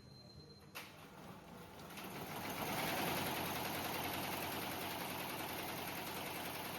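Computerized embroidery machine stitching at speed, a rapid, even run of needle strokes. It is faint at first, comes up about two seconds in, and then runs steadily.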